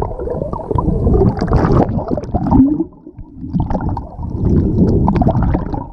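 Muffled, low rumbling and gurgling of seawater from under the surface, with scattered small clicks. The level dips briefly about halfway through, then returns.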